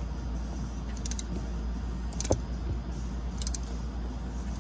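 Light metallic clinks of hand tools on a broken exhaust manifold bolt: a few short, sharp ticks about a second apart over a steady low hum.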